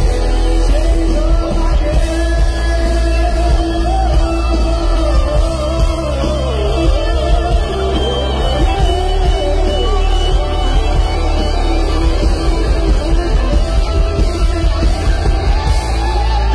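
Live rock band playing over a concert PA, with a singer's voice carrying a wavering melody over heavy, booming bass.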